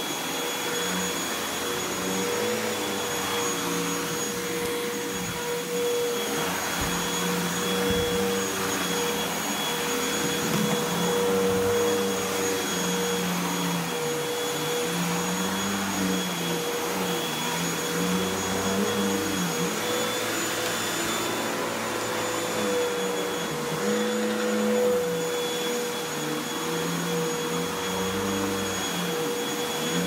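Upright bagless vacuum cleaner running on carpet: a steady whirring whine with a lower tone that keeps rising and falling as it is pushed back and forth.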